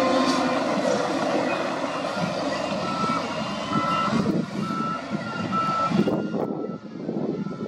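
SDLG wheel loader's diesel engine running as it reverses, with its backup alarm beeping about once every 0.8 seconds from about three seconds in.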